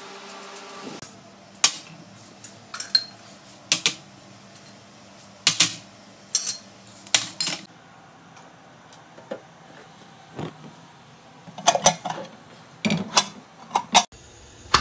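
Kitchen utensils knocking and clinking against steel cookware: about twenty sharp separate clinks at an irregular pace, coming more thickly in the last few seconds.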